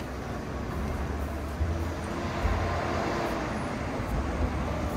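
Steady vehicle or road traffic noise: a low rumble with a hiss over it.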